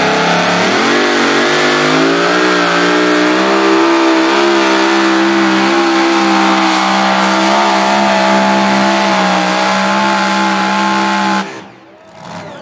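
Supercharged engine of a super modified two-wheel-drive pulling truck at full throttle while dragging the pulling sled. The revs climb over the first couple of seconds, then hold high and steady, and the sound cuts off suddenly about a second before the end.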